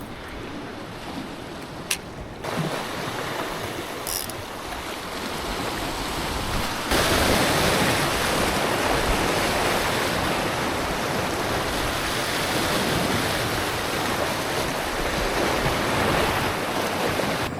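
Ocean surf washing against a rocky volcanic shoreline, a steady rushing noise that gets louder about seven seconds in. A single sharp click about two seconds in.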